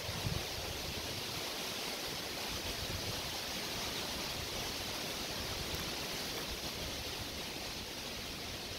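A steady, even hiss with nothing standing out: no steps, voices or distinct events.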